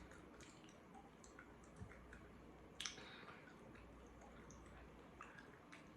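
Faint eating sounds while chewing corn on the cob: soft wet mouth clicks and squishes over a low room hum, with one sharper click about three seconds in.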